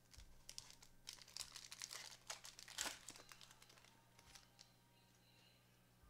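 Wrapper of a trading card pack crinkling and tearing as gloved hands rip it open: a run of crackles lasting about three seconds, loudest near the middle, then dying away.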